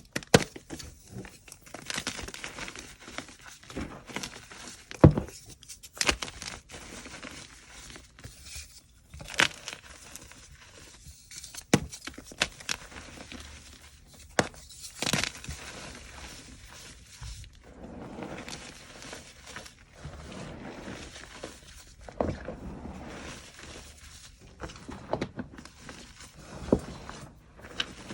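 Chalk blocks being crushed and crumbled: irregular sharp crunches and snaps over a dry, crumbly crackle, with the sharpest snap about five seconds in.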